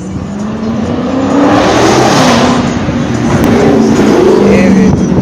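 A motor vehicle's engine revving loudly as it accelerates past, its pitch rising over the first couple of seconds and then holding.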